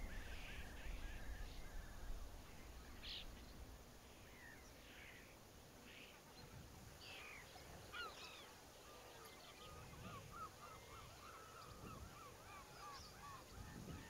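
Faint calls of a flock of birds: scattered short calls, some rising in pitch, and a quick chattering run of calls in the second half, over a low wind rumble that eases after the first few seconds.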